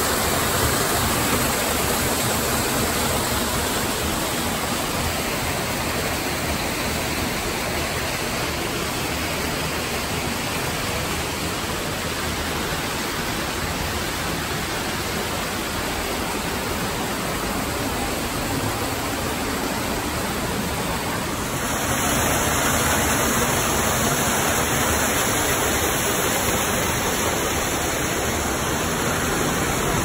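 A small waterfall pouring and splashing over boulders makes a steady rushing of water. About two-thirds of the way through it suddenly grows louder and brighter.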